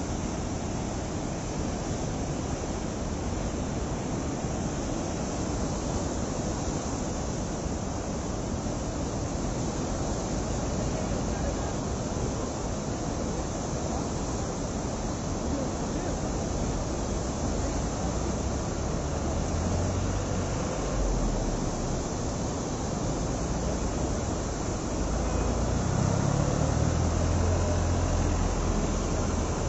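Steady rushing of the flooded Mahakali River, a fast torrent of muddy floodwater swollen by days of rain. A low rumble grows under it in the last few seconds.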